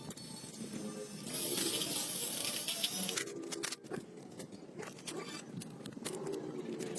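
A hiss of spray lasting about two seconds, followed by several sharp clicks and knocks.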